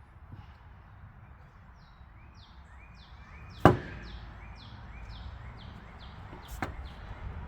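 Two sharp knocks, a loud one about halfway and a weaker one near the end, over a quick run of short, high, falling chirps at about three a second.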